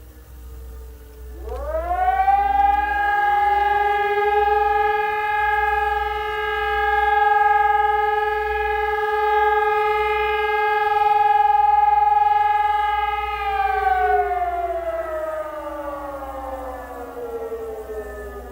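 Civil-defence siren sounding during a routine test. It winds up quickly about a second and a half in and holds one steady tone for about ten seconds. It then winds slowly down, falling in pitch.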